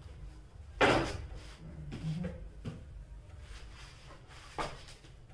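Books and a phone being handled and set down on a table: a loud knock with a short scrape about a second in, then a few lighter knocks.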